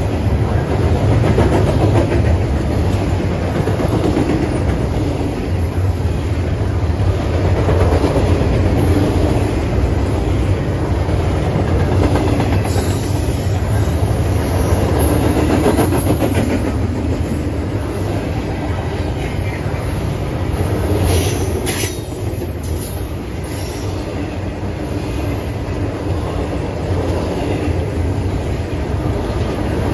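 Norfolk Southern double-stack intermodal train's well cars rolling past, a loud, steady rumble and clatter of steel wheels on the rails.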